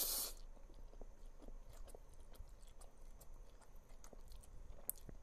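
A person chewing a mouthful of instant ramen noodles close to the microphone, with many small wet mouth clicks, after a short noisy burst right at the start.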